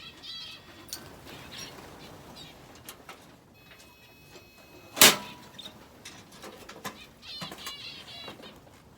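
Aviary finches and canary chirping in short repeated calls, with one sharp knock about five seconds in, the loudest sound.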